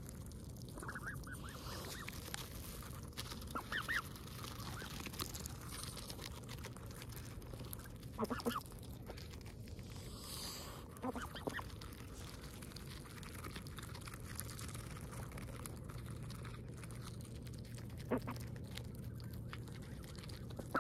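Canada geese calling: a handful of short honks spaced several seconds apart, the loudest about eight seconds in, over a steady low background rumble.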